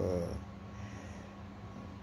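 A man's word trails off at the start, then a steady low hum with a faint thin whine above it.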